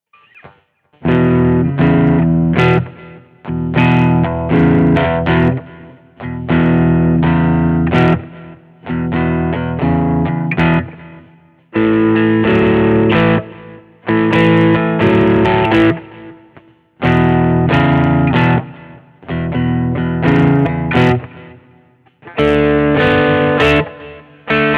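Schecter Omen 6 electric guitar played through an amp with an overdriven tone. Chords are struck and left to ring for a second or two, then cut off, over and over in a repeating riff.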